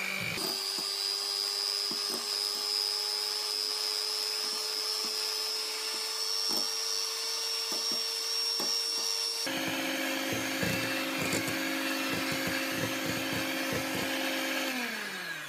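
Electric hand mixer whipping liquid cream in a glass bowl until it stiffens: a steady motor whine with a high note above it, its pitch creeping slightly up, and scattered clicks of the beaters against the glass. The motor note shifts about nine and a half seconds in, then winds down, falling in pitch, as the mixer is switched off near the end.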